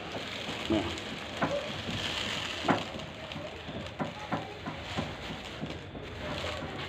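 Pigeons pecking at grain: a run of quick, irregular sharp taps over a steady background hiss.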